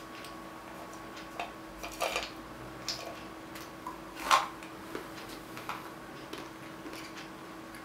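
Salted peanuts rattling and clattering inside a metal tin as it is tipped up to the mouth: a handful of short irregular clatters, the loudest about four seconds in.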